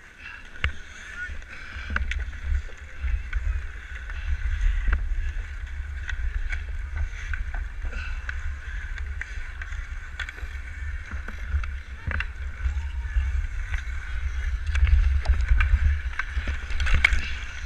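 Ice hockey skates scraping and carving outdoor pond ice, with scattered sharp clacks of a stick on the ice and puck, over a low wind rumble on the head-mounted camera's microphone. The rumble and clacks grow louder near the end, as the puck is played along the boards.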